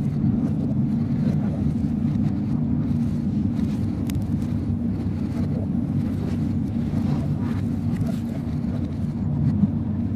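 Steady running noise of a train heard from inside the driver's cab as it rolls through the yard tracks, a low even rumble with a few faint clicks.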